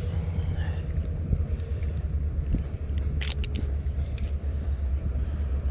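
Wind buffeting the microphone in a steady low rumble, with a few light metallic clinks about three seconds in, like bits of wire and small nails stuck on a magnet knocking together.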